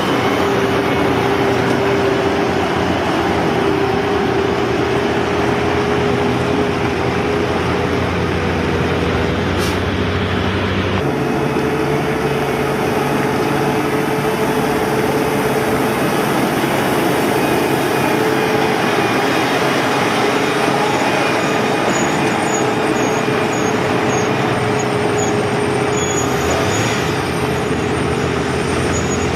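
Heavy road-construction machinery running steadily, a diesel-type engine rumble with a constant whine over it. The sound changes abruptly about eleven seconds in, then carries on in the same steady way.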